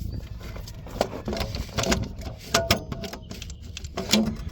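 Irregular metallic clicks and clinks of hand tools working a bolt, a few sharp knocks over a steady low rumble, as a backhoe's starter is being unbolted.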